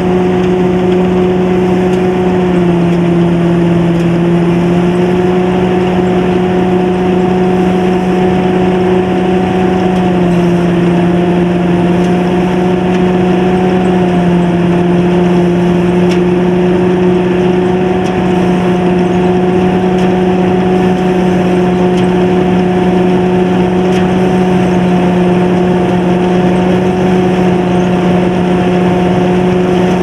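Sakpattana KM-D No.2 combine harvester running steadily while cutting lodged rice: its 220 hp turbo diesel engine and threshing machinery give a loud, even drone that dips slightly in pitch a few times as the load changes.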